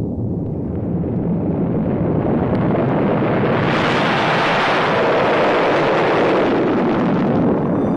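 Electronic music: a loud wash of hissing noise that brightens and swells from about three seconds in, then dulls again near the end.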